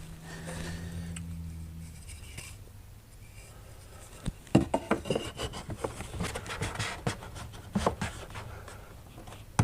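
A cordless drill runs at a steady speed for about two seconds and stops, then a run of knocks, clicks and scraping as wood and hardware are handled, the sharpest knock about four and a half seconds in.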